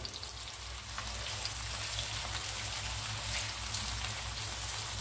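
Sliced onions frying in hot cooking oil in an aluminium karahi: a steady sizzling hiss with fine crackle, a little louder from about a second in.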